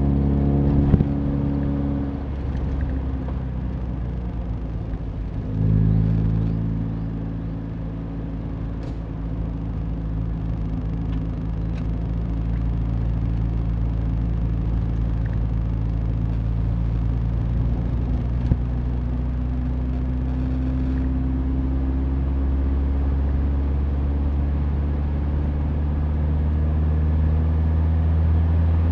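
Mazda Roadster's four-cylinder engine running with road and tyre noise under it. About two seconds in the engine note falls away as the throttle is eased, comes back with a short surge about five and a half seconds in, and near the end rises slowly in pitch as the car gathers speed.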